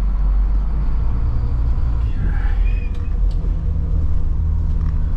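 Rear-mounted diesel engine of a converted school bus running, heard from inside the insulated cabin as a steady low rumble. Its note steps up about two seconds in.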